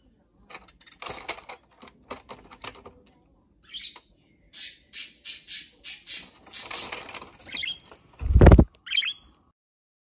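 Budgerigar moving about, with clicking and scuffing noises, a run of rhythmic scuffing strokes at about three a second, and short high chirps about four seconds in and again near the end. A loud low thump, the loudest sound, comes just before the end, and the sound then cuts off.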